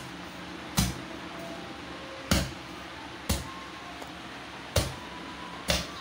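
Ball of pizza dough slapped down on a kitchen counter five times, roughly a second apart, each a sharp thud. The dough is being worked until it stops sticking to the counter.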